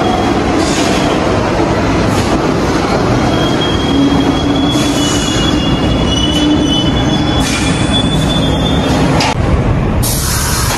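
Subway train running on the rails: a steady rumble and rattle, with a high, thin wheel squeal from about four to nine seconds in.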